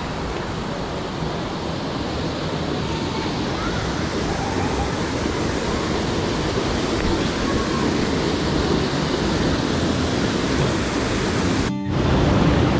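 Steady rush of falling water from a waterfall, with a brief dropout near the end.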